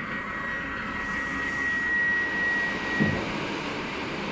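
Commuter electric train's sliding passenger door opening: a steady high warning tone sounds while it moves and stops a little after three seconds in, with a thud about three seconds in. The train's steady equipment hum runs underneath.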